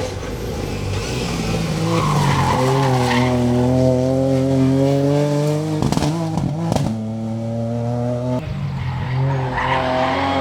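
Ford Fiesta R2T rally car's engine accelerating hard, its pitch climbing steadily, with a few sharp cracks around the gear changes about two-thirds through, then dropping suddenly and climbing again near the end. Tyres squeal over the acceleration.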